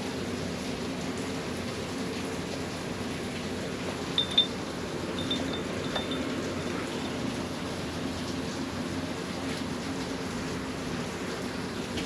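A steady low mechanical hum with an even drone, broken by a few faint, short, high chirps about four to six seconds in.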